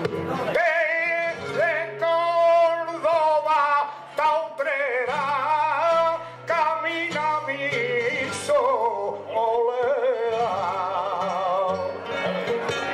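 Male flamenco singer (cantaor) singing long, wavering, ornamented phrases over flamenco guitar accompaniment. The voice comes in about half a second in and breaks off briefly twice.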